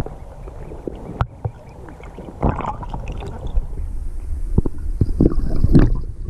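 Ducklings paddling and dabbling at the water surface, heard from underwater: a steady low rumble with scattered splashes and knocks. The loudest come near the end as a duck swims right over the microphone.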